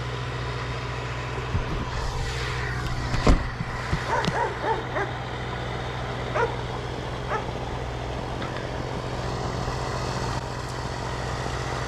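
An engine idling steadily, with a dog barking and yipping several times in the middle and one sharp knock about three seconds in.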